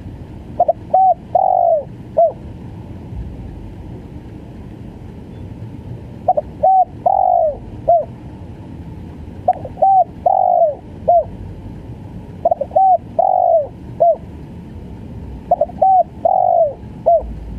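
Spotted dove cooing in the stuttering 'gagap' style. Each phrase is two short coos, then a longer coo that falls at the end, then a short closing coo, and it repeats about every three seconds, five times.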